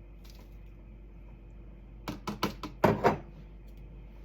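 A quick run of about five sharp knocks and clicks, a measuring spoon against a glass jar as freeze-dried ingredients are added, starting about halfway through.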